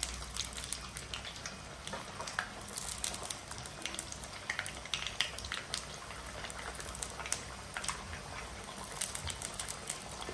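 Raw potato pieces deep-frying in a pan of hot oil, sizzling with a dense, irregular crackle as more pieces are dropped into the oil by hand.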